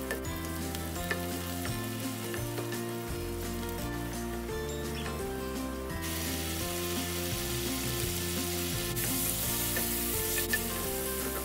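Onions, garlic and tomatoes sautéing in oil in a frying pan, sizzling; the sizzle gets suddenly louder about halfway through and louder again near the end. Background music plays throughout.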